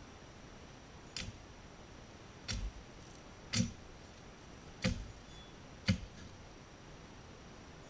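Machete chopping at branches and brush: five sharp, short chops about a second apart, heard at a distance.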